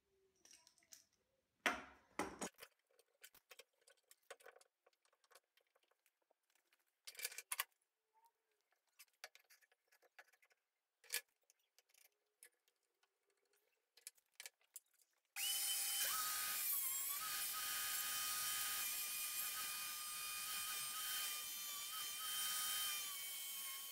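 Scattered knocks and clatters of workshop setup, then about fifteen seconds in a Bosch GWS 850C angle grinder clamped in a bench vise starts suddenly and runs steadily with a high whine, grinding an aluminium workpiece held against its disc.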